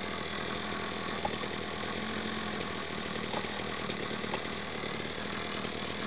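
Small 33cc gasoline engine of a JH58 gas-powered SDS Max rotary hammer drill idling steadily, the hammer not engaged.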